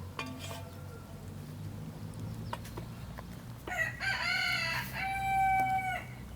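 A rooster crowing once, a loud call of about two seconds that starts a little over halfway through and ends on a held note. A few short chicken clucks come in the first second, over a steady low hum.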